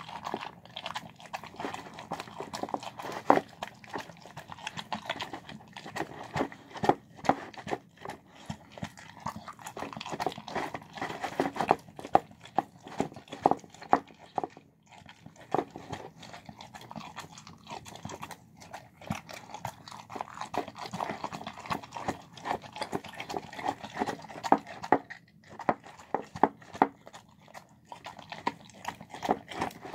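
A dog eating soft cooked chicken and rice from a bowl: continuous, irregular wet smacking, lapping and chewing, with many quick clicks and knocks as its mouth works against the food and bowl.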